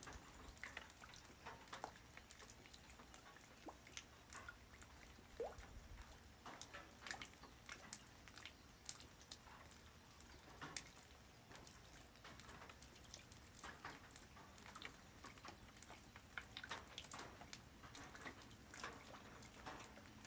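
Light rain falling on the ground: a faint hiss with many irregular, scattered drop ticks.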